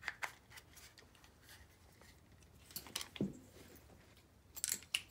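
Small hard clicks and light scraping of plastic and metal parts as an RC brushless motor is worked into an RC crawler's transmission housing: a few sharp clicks at the start and a quick cluster about four and a half seconds in.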